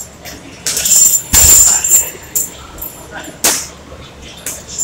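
Punches landing on a hanging heavy bag in an irregular run, each hit with a dull thud and a sharp hissing exhale from the boxer; the loudest flurry comes in the first two seconds, with a single sharp smack about three and a half seconds in.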